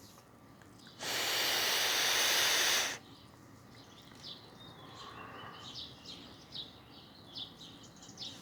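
A loud, even hiss lasting about two seconds starts abruptly a second in and cuts off sharply. Small birds chirp faintly for the rest of the time.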